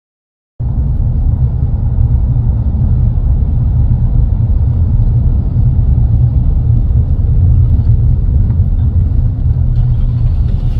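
Car driving, a steady low rumble of road and engine noise. It cuts in abruptly about half a second in.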